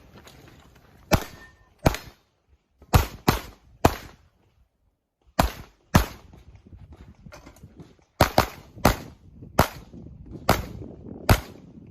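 Handgun shots during a practical-shooting stage run, about a dozen sharp reports. Some come in quick pairs, the typical double tap on each target, and short pauses fall between the groups as the shooter moves between targets.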